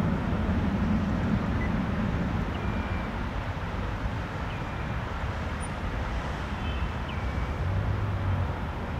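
Airbus A319's jet engines rumbling low and steady as the airliner climbs away after takeoff, slowly fading with distance.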